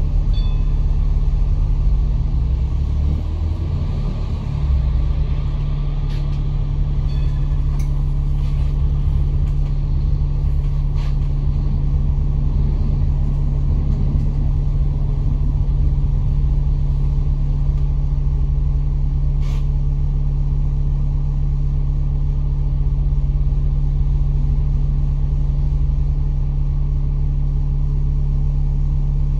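Bus engine and drivetrain running steadily, heard from inside the cabin as a constant low drone, with a few light clicks and rattles, one sharper click about two-thirds of the way through.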